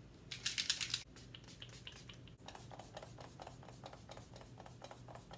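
Hiss of a makeup spray bottle misting the face, a quick run of pumps lasting about half a second. After it comes a run of soft, rapid ticks.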